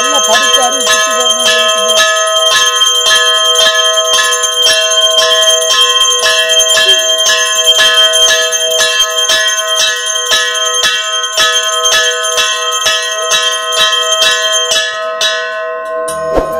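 Brass temple bells rung over and over, about two to three strokes a second, each stroke ringing on into the next. The ringing dies away about fifteen seconds in.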